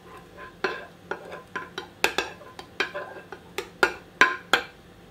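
A table knife clinking and scraping against the sides and bottom of a glass dish as it swirls caramel through soft ice cream mixture. It makes a quick, irregular run of clicks, the loudest few near the end.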